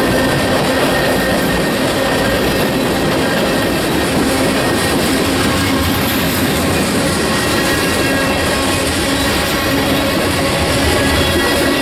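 Freight train of tank cars and covered hopper cars rolling past close by: a steady, loud rumble of steel wheels on rail, with a few thin steady ringing tones over it.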